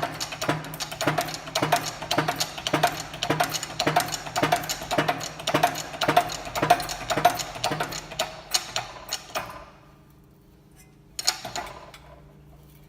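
Rapid, even metallic knocking, about four or five strokes a second, as the new hub bearing is pressed into the Toyota Corolla E120 hub; it stops about three-quarters of the way in, with one last knock shortly after.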